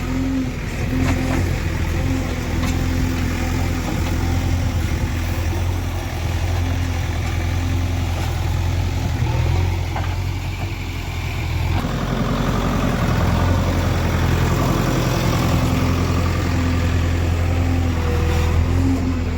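Diesel engine of a JCB 3DX backhoe loader running steadily as the machine drives along, a deep even drone that changes tone about twelve seconds in.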